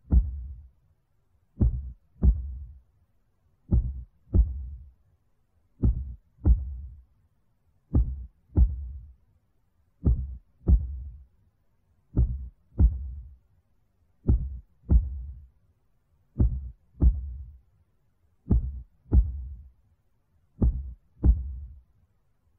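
Slow heartbeat: pairs of low thumps, lub-dub, repeating about once every two seconds.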